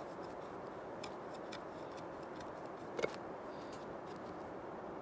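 Faint scraping and ticking of a knife tip being twisted into wood to bore a small hole, with one sharper click about three seconds in.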